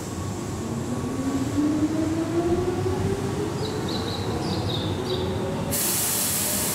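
Keihan electric train accelerating: the traction motor whine rises steadily in pitch over the rumble of wheels on rail, with a few brief high squeals. A sudden steady hiss starts near the end.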